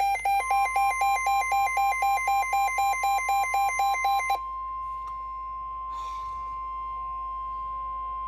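Electronic alarm beeping from a weather alert radio, pulsing about four to five times a second, which stops about four seconds in. Under it, from about half a second in, the steady 1050 Hz NOAA Weather Radio warning alarm tone sounds and carries on alone, signalling that a warning broadcast follows.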